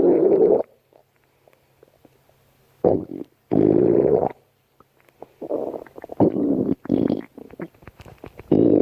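A person's stomach growling: a run of gurgling rumbles, each lasting under a second, with short quiet gaps between them and a quick cluster of three about two-thirds of the way in.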